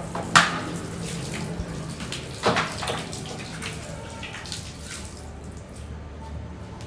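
Tap water running and splashing into a plastic basin on a tiled floor, with two sharp clatters of plastic basins being handled, the louder one about half a second in. The splashing thins after about five seconds.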